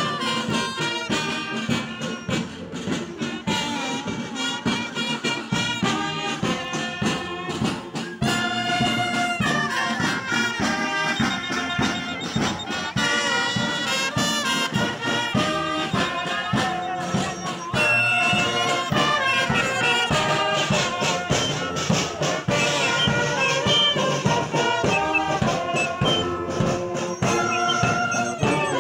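Marching brass band playing a tune: saxophones and tubas over a steady drum beat.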